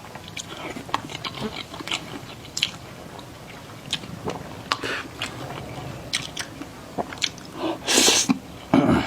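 Close-miked eating: wet chewing and biting with many small mouth clicks and crackles, and two louder bursts near the end.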